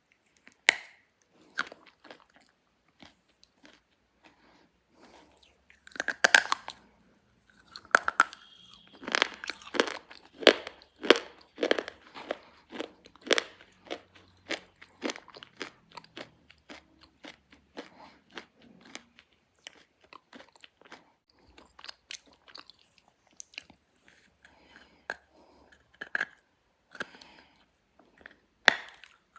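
A1-brand slate pencil being bitten and chewed: a run of sharp, crisp crunches that come thickest in the middle and thin out toward the end.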